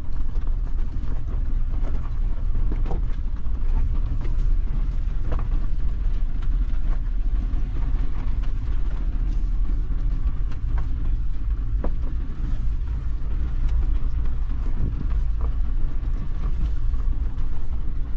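Suzuki Jimny being driven on a rough off-road track, heard from inside the cabin: a steady low engine and road rumble with scattered knocks and rattles.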